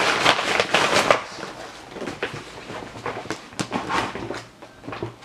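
A large iridescent plastic drawstring bag crinkling and rustling as a box is pulled out of it. The rustle is loudest in the first second, then thins to scattered crackles.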